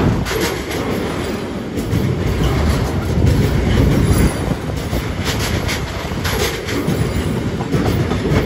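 Freight train's tank wagons rolling past, steel wheels rumbling with repeated clicks over the rail joints. A flat wagon loaded with wheelsets comes past near the end.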